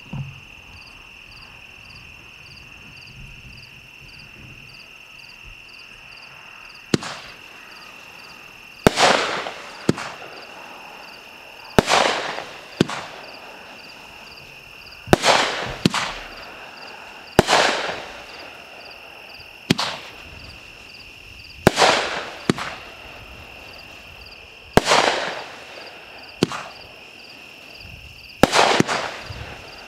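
Fireworks going off in a repeating sequence, starting about seven seconds in: sharp launch thumps, each followed a second or two later by a louder bang that trails off. The sequence gives about a dozen shots over twenty seconds, and the shells rise with red crackling comet tails.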